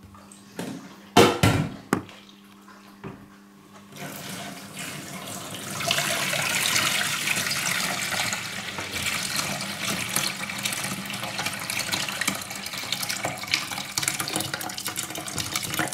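A few knocks as a plastic bowl is handled in a steel sink. Then, from about four seconds in, a steady stream of water is poured from the bowl into a stainless steel pot, splashing hardest a couple of seconds later. This is the cooking water being poured off boiled chickpeas, carrying away their loose skins.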